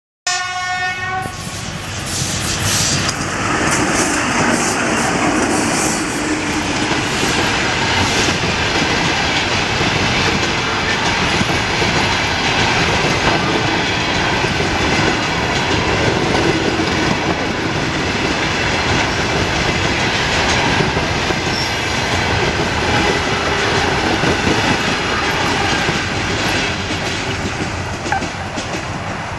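EP2K electric locomotive gives a short horn blast of about a second at the very start. Then it and its passenger coaches pass at speed: steady loud rolling noise with the clickety-clack of wheels over rail joints, easing a little near the end.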